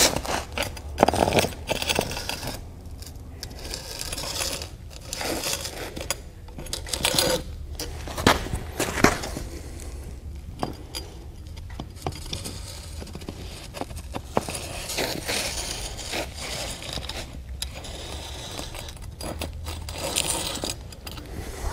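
A paver marking tool's metal scribe point scraping a line across clay pavers as the tool is slid along the edge restraint, in uneven strokes with sharp clicks and knocks.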